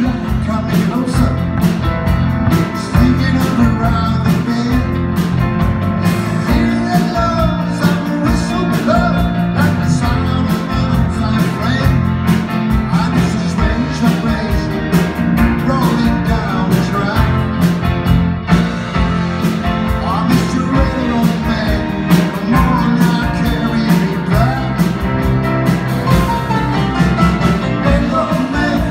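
A live rock and roll band playing: electric guitars, electric bass, drums and keyboard, amplified on stage, with a steady driving drum beat.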